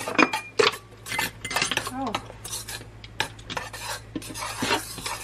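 Spoon stirring in a stainless steel mixing bowl, scraping and clinking irregularly against the sides as a creamy soup mixture is mixed.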